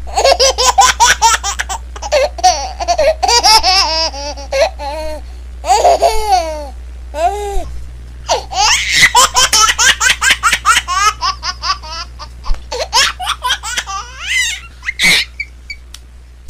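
A baby laughing hard in long bouts of rapid, high-pitched laughs with quick breaths between. There is a brief pause about seven seconds in, then the laughing starts again and fades out near the end.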